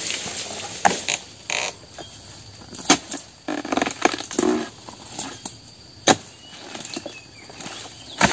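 A dodos, a chisel blade on a long pole, is jabbed into the stalk of an oil palm fruit bunch, making sharp knocks a couple of seconds apart with scraping between them. Near the end the cut bunch breaks free and drops.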